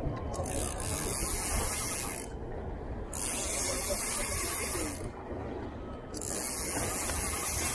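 Spinning reel cranked in three spurts of about two seconds each, a fast whirring hiss, as a cast metal jig is wound back in. A steady low rumble runs underneath.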